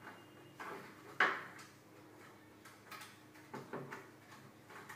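Scattered knocks and clicks of a kitchen trolley's parts being handled while its screws are taken out and it is put together, with the sharpest knock about a second in.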